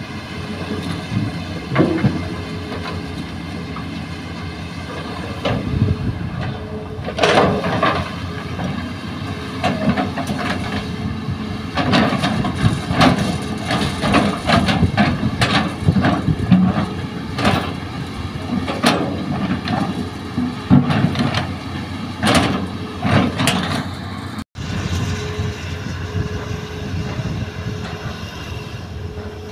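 Hitachi hydraulic excavator's diesel engine running steadily, with repeated clattering and knocks from about seven seconds in as its bucket digs and handles soil and rock. A brief dropout near the end, then only the engine hum.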